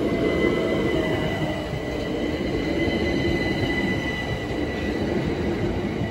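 A pair of coupled Class 375 Electrostar electric multiple units running past at close range: a steady rumble of wheels on rails with a thin, steady high whine over it. It eases off near the end as the train draws away.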